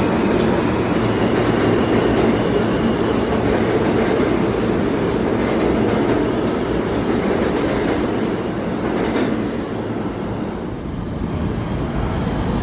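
New York City Subway F train running through an underground station, steel wheels rumbling and clicking over the rail joints. The noise eases for a moment about nine seconds in, then builds again.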